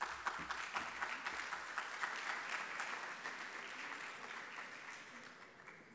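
Audience applauding, starting at once and dying away gradually over several seconds.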